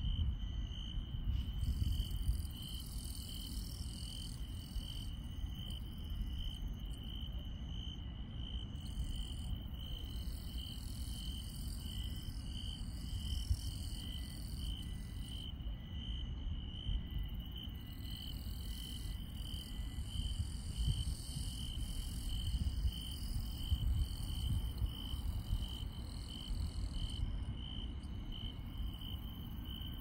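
Night chorus of crickets and other grass insects: one insect chirps steadily in an even pulse, while others trill higher in stretches that start and stop every few seconds, over a low rumble.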